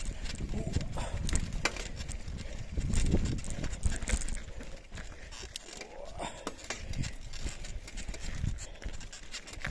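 Mountain bike rolling over a loose rocky trail: tyres crunching on stones and the bike rattling with many irregular knocks, over a steady low rumble.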